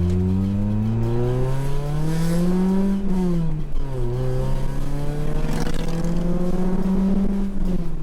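Scion tC's 2AZ-FE four-cylinder engine pulling hard at wide-open throttle. It revs up steadily for about three seconds, drops sharply in pitch at an upshift, then climbs again and drops once more near the end.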